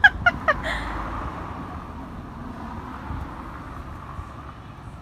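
Steady outdoor background noise of distant street traffic, slowly fading, with a few short high-pitched yelps in the first half second.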